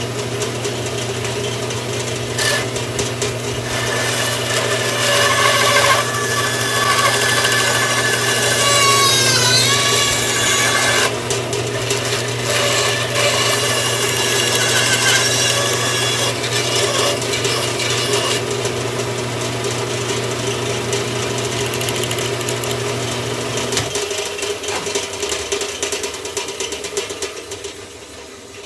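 Bandsaw running and cutting through a stack of three wooden spoon blanks, a steady motor hum under the blade's cutting noise, with whining tones that shift in pitch as the cut follows the curve. About three-quarters through, the motor hum stops and the saw winds down.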